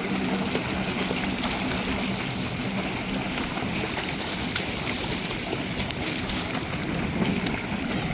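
Water sloshing and gurgling around a small boat, with scattered light clicks. A steady low hum fades out about three seconds in.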